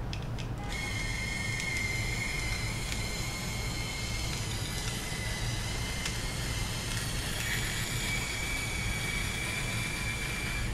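Small motor of an InStyler rotating hot iron running with a steady high whine as the iron works through a section of hair; the whine starts under a second in and steps slightly higher in pitch about seven and a half seconds in.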